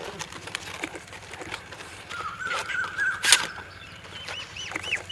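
Small birds chirping in short repeated calls, a quicker series of about three a second near the end. Under them, light crackling and one sharp snap just past the middle as a fresh green palm leaf is creased and folded by hand into a cup.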